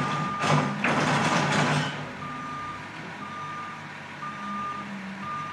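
Diesel machinery working as a load is tipped into a steel dump truck bed: a loud rushing, rattling noise over the first two seconds. Then a backup alarm beeps steadily, about once a second, over the engine running.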